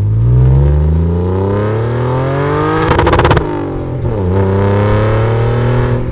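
Car engine accelerating hard, its pitch climbing for about three seconds. A rapid crackle of pops follows, then the revs drop and climb again in the next gear.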